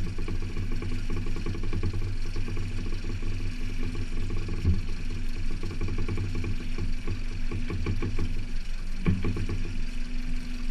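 A boat engine idling at low speed, with a steady, even low pulse.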